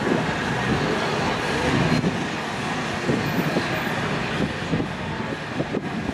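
Blackpool heritage tram running on the street track as it moves away, a steady rumble that fades slowly.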